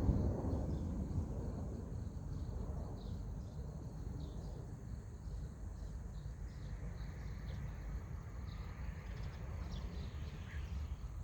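Outdoor ambience: a low, steady rumble with many faint, short high-pitched chirps from small birds or insects scattered through it.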